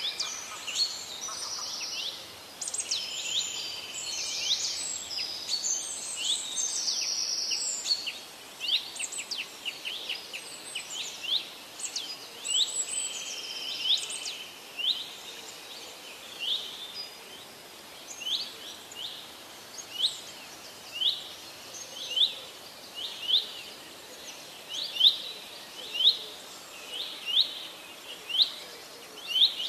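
Forest birds calling: a busy mix of chirps and held trills in the first half, then one short rising call repeated about once a second.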